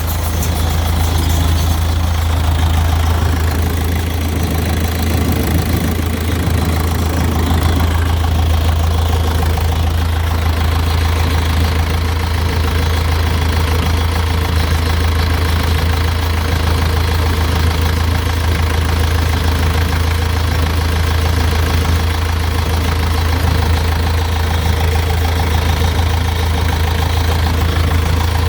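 Deutz four-cylinder diesel engine on a Freeman 370 baler idling steadily with a deep, even hum, running shortly after a cold start.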